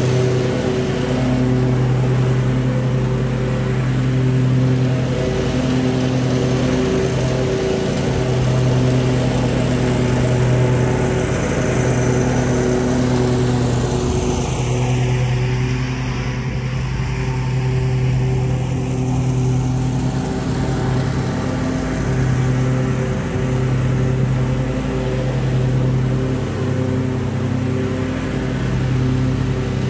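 Lawn mower engine running steadily, its hum rising and falling a little in level.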